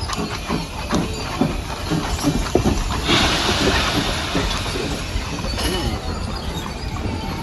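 Indistinct voices, with a burst of hissing noise about three seconds in that lasts a second or two.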